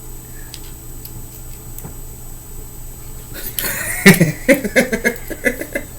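A person bursts out laughing about three and a half seconds in: a sharp breath, then a run of loud, choppy laughs. Before that there are only a few faint clicks over a quiet room.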